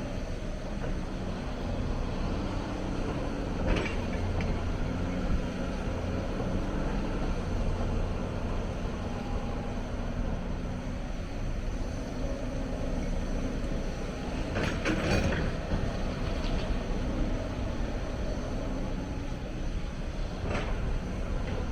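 Hyundai 290 hydraulic excavator's diesel engine running steadily under work, with a few brief sharp knocks: one about four seconds in, a cluster around the middle, and one near the end.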